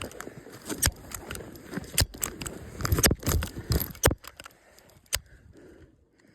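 Rustling and scraping with irregular sharp clicks, busy for about four seconds and then quieter.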